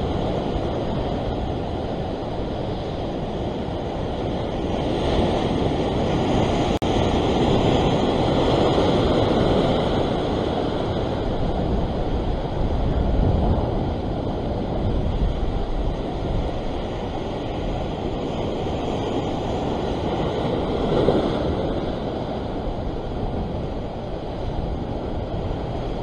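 Ocean surf breaking and washing over the rocks below, swelling and easing with each wave, with wind buffeting the microphone.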